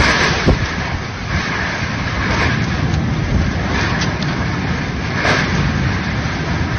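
Storm-force wind gusting hard, heavy wind noise buffeting the phone's microphone in a steady loud rush, with a couple of sharper gusts or knocks about half a second in and near five seconds in.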